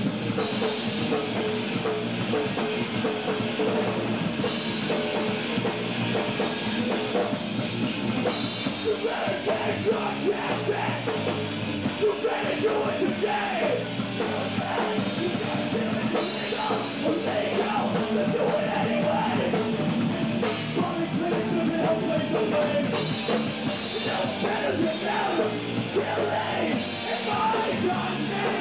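Live hardcore band playing loud, distorted rock with a drum kit, heard through an on-stage camcorder; vocals come in over the band about a third of the way in.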